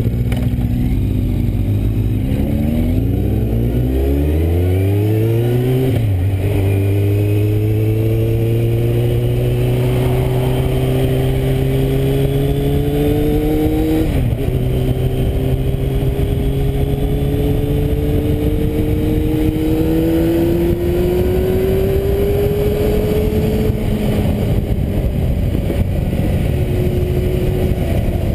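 Kawasaki Z750 inline-four through a Scorpion aftermarket exhaust, heard from on the bike, pulling away from a standstill and accelerating up through first, second and third gear. The engine note rises in each gear and drops at the shifts about six and fourteen seconds in, then holds roughly steady in third near the end.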